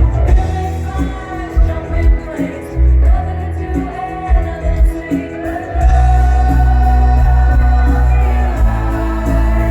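Live pop band performance with a woman singing lead, held sung notes over bass and drums; the bass fills in steadily and louder about six seconds in.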